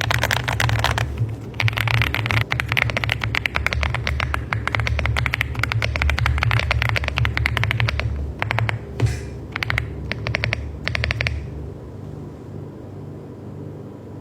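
Fast typing on an AULA F75 mechanical keyboard: a quick, continuous run of key clacks with a short break about a second in, then a few shorter bursts that stop about eleven seconds in. A steady low hum sits underneath.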